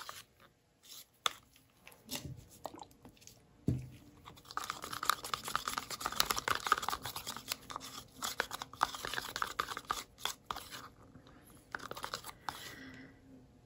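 A stir stick scraping and clicking around a cup of gold acrylic paint as it is mixed: sparse clicks at first, then steady scraping for several seconds from about four seconds in.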